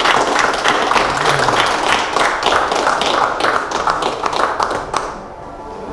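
Small group of people applauding with hand claps, the clapping dying away about five seconds in.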